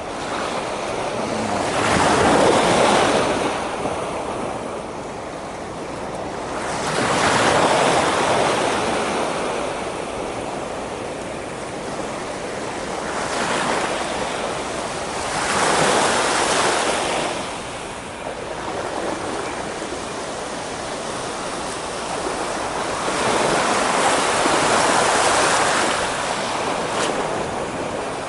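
Waves breaking and washing on the shore in swells that rise and fade every few seconds, with wind on the microphone.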